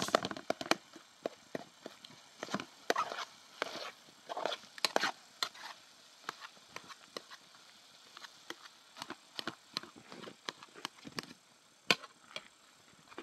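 Irregular series of sharp knocks and clatter, busiest in the first half, with a few short scraping noises and one louder knock near the end.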